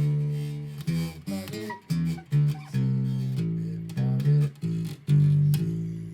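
Music: a run of plucked low notes, the last struck about five seconds in and left to fade.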